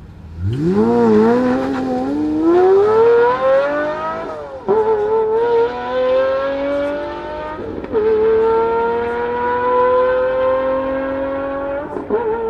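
Pagani Zonda roadster's naturally aspirated Mercedes-AMG V12 launching from a standstill under full throttle. Its note wavers briefly at the launch, then climbs steadily through the gears, with three upshifts heard as sudden drops in pitch.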